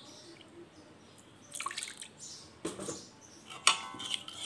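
Water splashing and dripping into spice paste in a metal kadai, then a steel spatula stirring and scraping the pan, with one sharp, briefly ringing clink of spatula on pan near the end.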